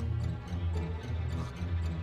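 Dark film score: a low, pulsing bass drone under light, regular ticking percussion.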